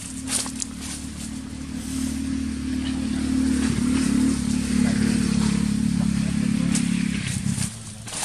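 A motor engine running steadily nearby, growing louder about halfway through with a drop in pitch, then cutting off shortly before the end.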